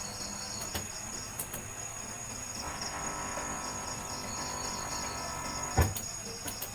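Crickets chirping in steady, evenly pulsing trills over background room noise, with a few faint clicks and a soft thump near the end.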